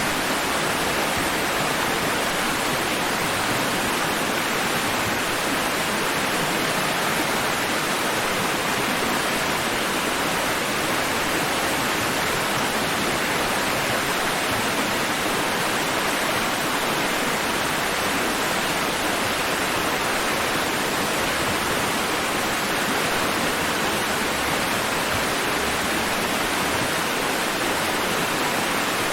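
Sea waves washing against rocks, heard as a steady, unbroken rush of water without distinct swells.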